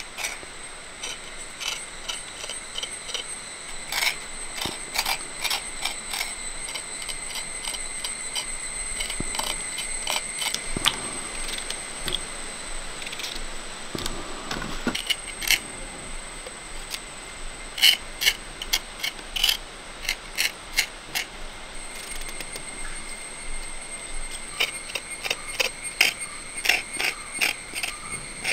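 Many irregular sharp clicks and taps, some in quick runs, over a steady high-pitched drone.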